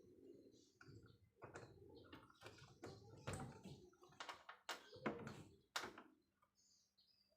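Faint, irregular clicks and taps, the kind made by handling small hard parts, scattered through the first six seconds, then near silence.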